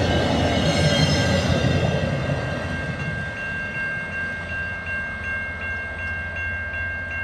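The rear passenger car of a passing train rumbles by on the rails, and the train noise fades as it draws away. A level-crossing warning bell rings steadily throughout, its strikes, about three a second, standing out once the train has receded.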